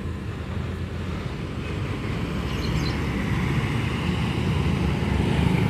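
Road traffic: a vehicle engine rumbling low and steady under road noise, slowly growing louder toward the end.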